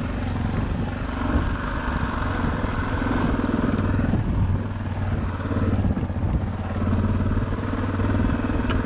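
Yamaha Ténéré motorcycle idling with its electric radiator cooling fan running, a steady whir over the engine's even low pulse; the fan cutting in is the sign of a hot engine. A short click near the end.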